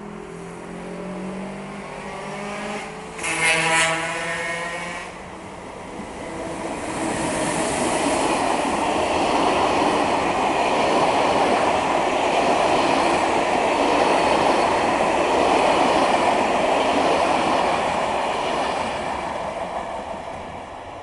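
Electric passenger train approaching with a whine that rises in pitch, then a loud horn blast of about two seconds. After that comes a long, steady rush of wheels on rails as TER passenger trains pass close by.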